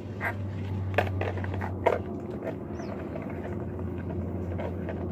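A few sharp clicks and knocks from objects being handled, the loudest about one and two seconds in, over a steady low hum.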